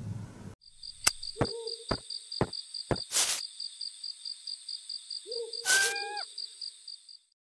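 Night-time sound effect: a steady, rapidly pulsing cricket trill with two low owl hoots, a few sharp clicks about a second in and a couple of brief rushes of noise. It starts and stops abruptly, as an edited insert.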